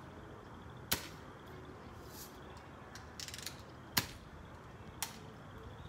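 BB gun fired three times, each a sharp pop: about a second in, near four seconds in, and once more a second later. A short rattle of small clicks comes just before the second shot.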